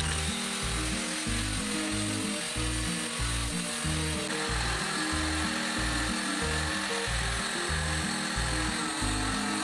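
Background music with a steady beat over power-tool noise. First a cordless drill with a sanding disc strips paint from a wooden door. About four seconds in, an angle grinder takes over, cutting through a metal door hinge.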